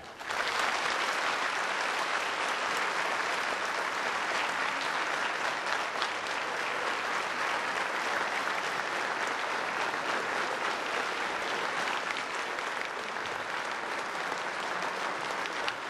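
Audience applauding steadily after a speech ends: many hands clapping together in a dense, even patter.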